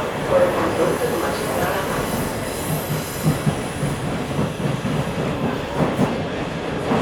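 Metro train running through a tunnel, heard from inside the car: a steady rumble of wheels on rails with irregular clacks. A thin, high wheel squeal comes in about a second in and lasts a couple of seconds.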